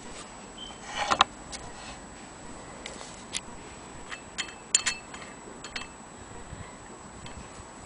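Irregular light metal clicks and knocks from a Willcox & Gibbs sewing machine hand crank as its wheel is gripped and turned by hand. The loudest is a quick cluster of clicks about a second in, and single clicks follow through the middle and once near the end.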